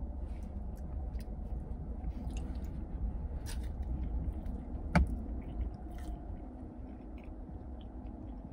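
Close-up biting and chewing of a crispy fried chicken sandwich, with scattered small crunches and one sharp click about five seconds in, over a steady low rumble.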